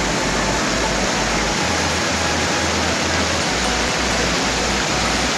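Mountain stream cascading over boulders: a loud, steady rush of white water.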